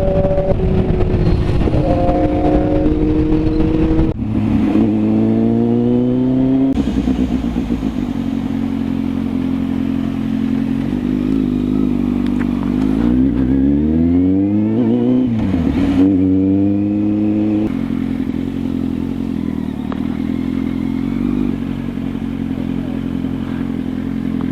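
Motorcycle engine running under way, pulling up in pitch and dropping sharply at gear changes about a third of the way in and again past two-thirds, with a rev rise and fall in the middle; steady wind and road noise underneath.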